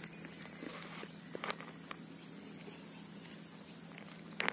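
Faint background noise with a brief rustle at the very start and a couple of soft clicks about a second and a half in.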